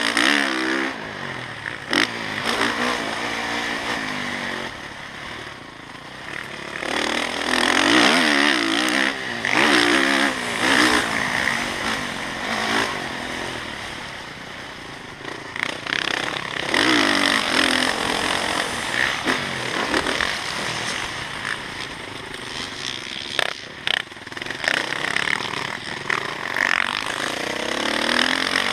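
Motocross bike engine revving hard and backing off in repeated swells as it accelerates and slows around the track, with a few sharp knocks.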